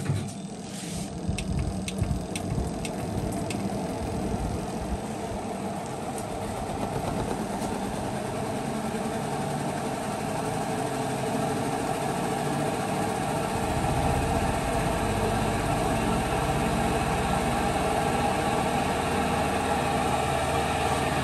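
Spin-dry tub of an LG WP-1650ROT twin-tub washing machine spinning up with a load of wet clothes: a few sharp clicks in the first seconds, then a steady motor and tub hum that slowly builds and deepens about two-thirds of the way through. The spin runs smoothly without the banging of the tub against the cabinet, the sign that the repair has cured the off-centre spin.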